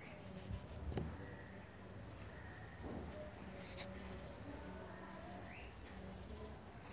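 Pencil scratching faintly on paper as a drawing is sketched, with a couple of light taps.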